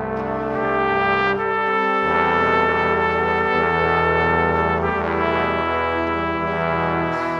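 Background music of slow, sustained chords, changing a few times.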